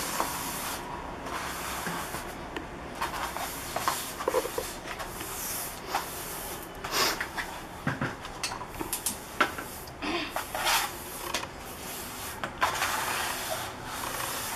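A stiff-bristled scrubbing brush rubbed back and forth through wet paint on a large paper sheet, a rasping scrub in uneven strokes, with a few sharp clicks among them.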